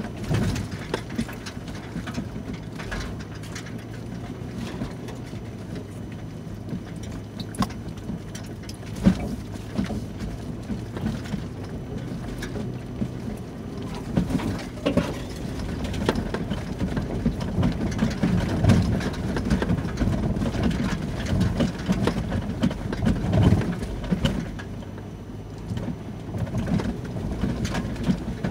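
Inside an SUV's cabin crawling along a rough dirt trail: a steady low engine hum, with irregular bumps, knocks and rattles from the body and tyres over ruts and rocks. The knocking grows busier about halfway through.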